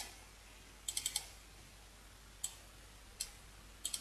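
Computer mouse clicking: a quick cluster of sharp clicks about a second in, two single clicks, and another quick cluster near the end.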